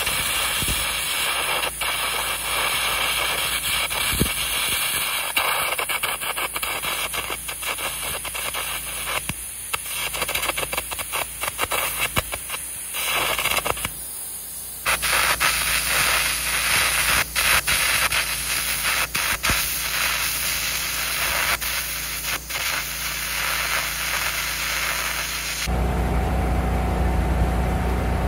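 Electra AAA airless arc gouging rod burning along a steel excavator cutting edge: a loud, crackling, hissing arc with no compressed-air blast. The arc breaks briefly about halfway through and stops a few seconds before the end.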